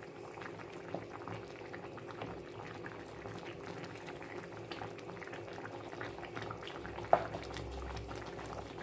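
Chicken in tomato sauce bubbling in a pot, a steady run of small pops, over a faint steady hum. A single sharp click about seven seconds in.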